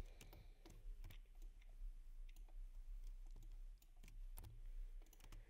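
Faint, irregular clicks of a computer mouse and keyboard being worked, over a low steady hum.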